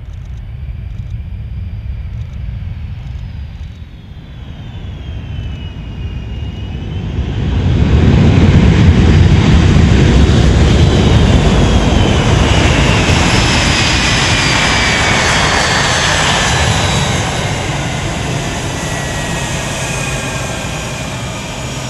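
Boeing C-17 Globemaster III's four turbofan engines as the transport rolls out on a dirt runway after touchdown: a steady jet rumble with whines falling in pitch. It grows much louder about eight seconds in and eases off a little near the end.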